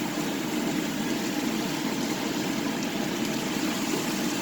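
Vegetables and soy sauce sizzling steadily in a frying pan, under a constant low hum.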